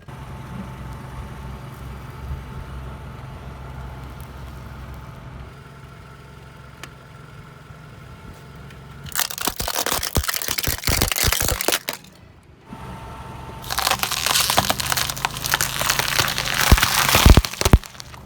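A car engine running slowly with a steady low hum, then two spells of loud cracking and crunching as the car's tyres roll over and crush crunchy objects, the first about nine seconds in and the second about four seconds later.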